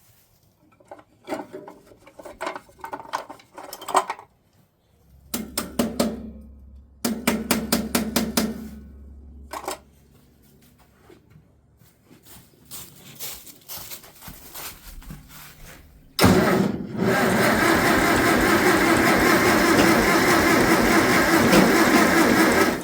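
Farmall 400's gasoline engine cranked by the starter in several short bursts. About sixteen seconds in it catches and runs steadily and loudly. It runs only on choke and has a misfiring cylinder: the third plug is not getting spark.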